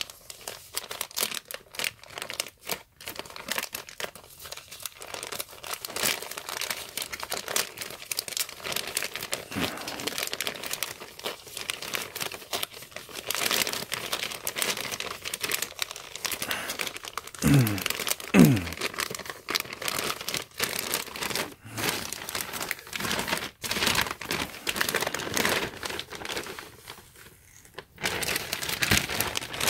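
White plastic poly mailer being torn open and crumpled by hand: continuous crinkling and tearing of thin plastic, with two louder moments just past halfway.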